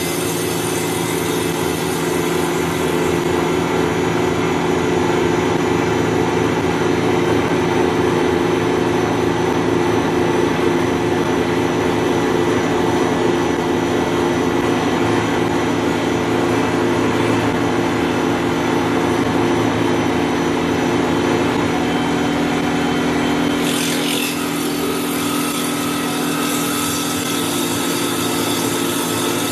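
CNC wood lathe's motor-driven circular saw blade cutting a spinning wooden baseball bat blank, a loud steady machine whine with the rush of wood being cut. About 24 seconds in the note briefly sweeps and settles into a different steady tone, as the final, slower pass begins.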